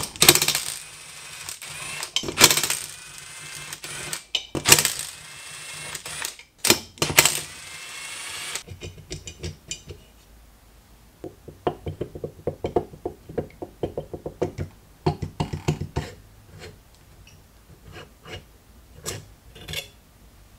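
Cordless impact driver spinning in four bursts of a second or two each, with a whine that shifts in pitch. After that, a long series of quick, sharp metallic clicks and taps from hand tools, some in fast runs.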